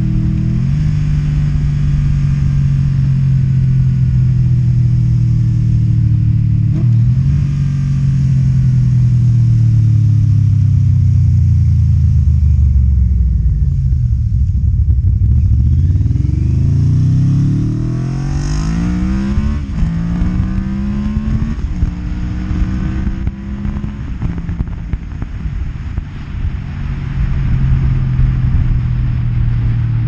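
1992 Yamaha Vmax 1200's V4 engine through Delkevic slip-on exhausts, heard from the rider's seat. It runs steadily, then the engine note falls away as the bike slows for a turn around the middle. It then climbs as the bike pulls away, breaks once at a gear change, and settles into a steady cruise before rising again near the end.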